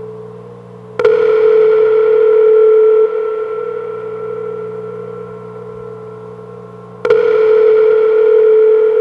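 Two struck, bell-like metallic tones about six seconds apart. Each rings on at one steady pitch, holds loud for about two seconds and then drops back sharply to a quieter, lingering ring. A steady low drone runs underneath.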